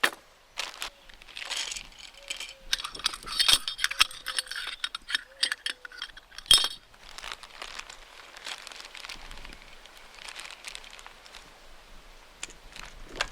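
Small hard items clinking and rattling together, with rustling and a few sharp clicks: parts and packaging being handled. The clinking is busiest a couple of seconds in, with one loud click about halfway through.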